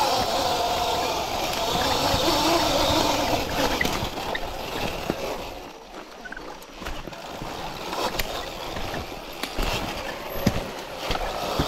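Sur-Ron electric dirt bike on the move: a steady rush of tyre and wind noise with scattered knocks and rattles and no engine note. It drops quieter about six seconds in, then picks up again.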